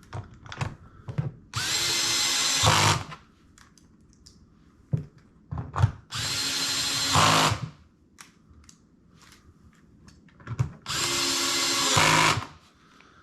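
Cordless screw gun driving screws, three runs of about a second and a half each, with short clicks and knocks of handling between them.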